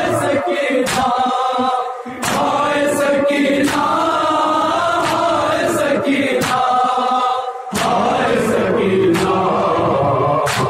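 A group of men chanting a Shia noha (mourning lament) together, with sharp chest-beating slaps (matam) landing roughly once a second in time with the chant.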